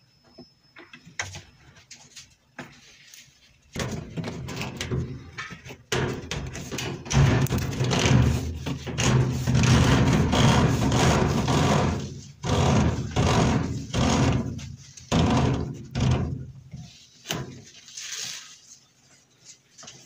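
Close-up scraping, rubbing and knocking as a corrugated plastic drain hose is worked onto a washing machine's drain pump outlet. The noise comes in irregular bouts, starts about four seconds in, is densest around the middle and thins out near the end.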